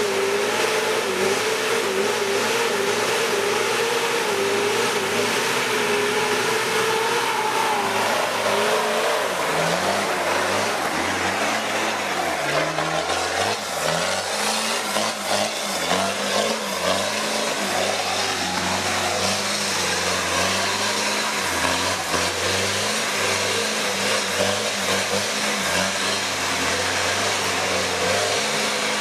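Four-wheel-drive vehicle engine revving, its pitch rising and falling repeatedly. A higher wavering whine through about the first eight seconds gives way to lower, uneven revving.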